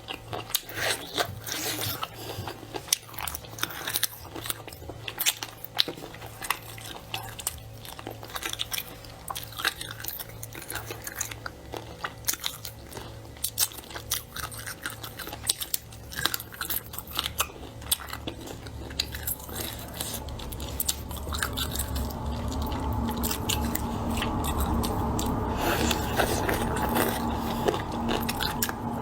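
Close-miked eating: crunchy biting and chewing with many sharp clicks and cracks. From about two-thirds of the way through, a louder, steadier noise builds beneath the chewing.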